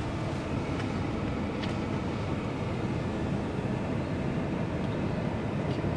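Steady road and engine noise heard inside a van's cabin while it is driving.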